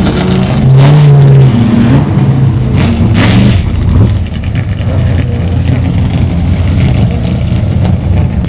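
Loud historic 1970s–80s racing car engines running and being revved, with sharp blips of the throttle about a second in and again around three seconds in.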